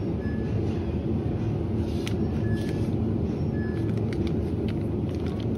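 Supermarket background noise: a steady low hum, with a few faint short beeps about a second apart.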